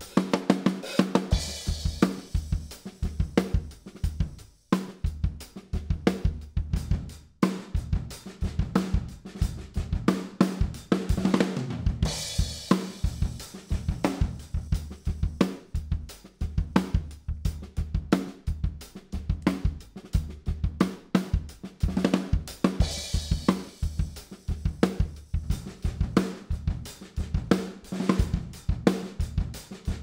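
Recorded acoustic drum kit playing a steady beat of kick, snare and hi-hat, heard through close kick and snare mics and overheads, with a hyper-compressed 'trash' microphone (an SM57 aimed at the wall) blended in part-way through to make the kit sound bigger. Cymbal crashes come about a second in, about twelve seconds in and about twenty-three seconds in.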